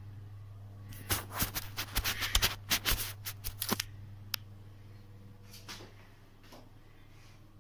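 A quick run of clicks and rustles of handling noise close to the phone's microphone, lasting about three seconds, then one more click and a few faint ones, over a steady low electrical hum.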